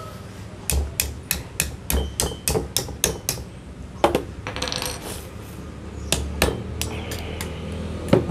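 Sharp knocks of a knife and hammer chopping fruit in a mortar bowl. The knocks come quickly, about three a second for some three seconds, then a few scattered strokes follow.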